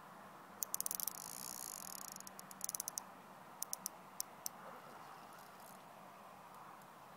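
Fishing reel clicking in fast runs with a high whirr between them, then a few single clicks, as a hooked barbel is played on a bent rod.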